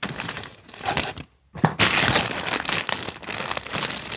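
Packaging crinkling and rustling as squishy toys are handled and packed into a box, in uneven stretches with a brief pause a little over a second in.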